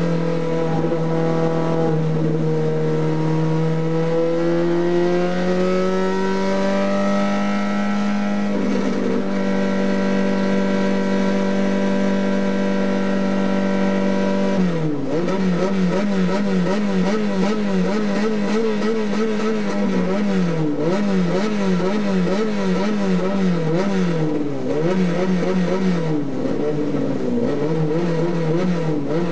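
Race car engine heard from inside the cockpit, running hard throughout. Its pitch climbs slowly, jumps to a new steady note about a third of the way in and holds there, then from about halfway it swings quickly up and down over and over.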